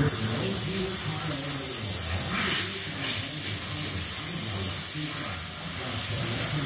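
A steady hiss that starts abruptly and keeps on evenly, with a faint murmur of voices beneath it.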